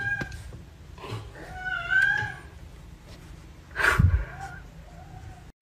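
Blue-and-white British Shorthair cat meowing twice: a short meow at the start, then a longer one that bends up and down in pitch about two seconds in. A single thump follows about four seconds in.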